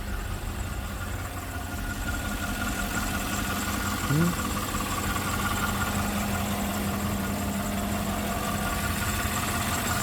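2015 Chevy Suburban's 5.3-litre V8 idling steadily with a freshly fitted water pump and tensioner, a low rumble under a steady whine. A short rising chirp about four seconds in.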